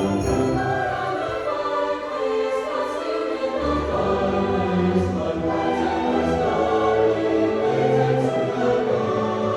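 A school orchestra playing live: sustained, held chords, with low bass notes coming in about three and a half seconds in.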